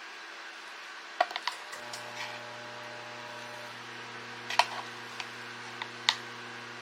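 A kitchen appliance switches on about two seconds in and runs with a steady electrical hum, amid a few light clicks and knocks of kitchenware.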